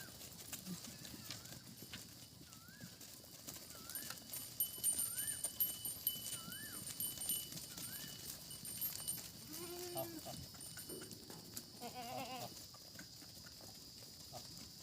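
Goats bleating twice, about ten and twelve seconds in, over a short chirp repeated about every 0.7 s that stops a few seconds before the bleats.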